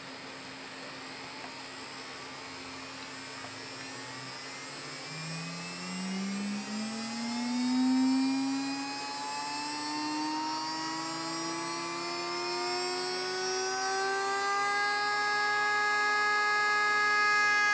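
Small electric motor on a DCC decoder tester spinning up under the decoder's default momentum. Its whine rises steadily in pitch and loudness and levels off near the end as it reaches speed.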